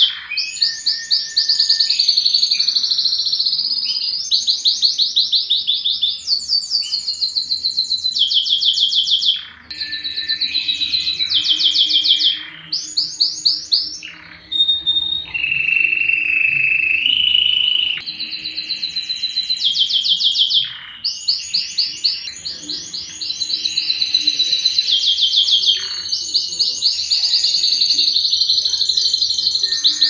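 Domestic canary singing a long, almost unbroken song of rapid high trills, one rolled phrase after another with brief breaks. About halfway through it holds a lower, steadier note for a couple of seconds.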